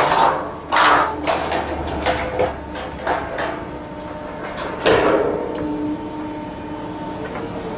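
Steel guardrail scraping, creaking and clanking as an excavator's scrap shear grips it and tears it loose. There are two sharp metallic bangs, about a second in and about five seconds in, over the low hum of the excavator.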